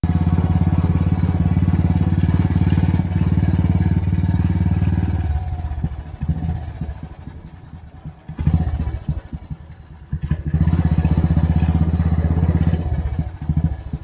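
Royal Enfield Bullet Electra's single-cylinder engine thumping steadily as the motorcycle is ridden. About five seconds in, the engine note drops and turns uneven, with a couple of short surges. From about ten and a half seconds it pulls loud and steady again, easing off near the end.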